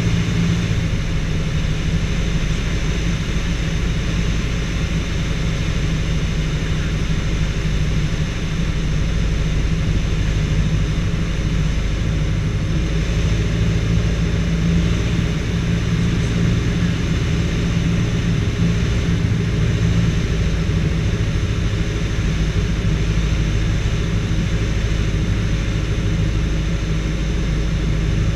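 Robin DR221 light aircraft's piston engine and propeller running steadily on the approach to land, heard from inside the cockpit as a low, even drone with rushing air noise.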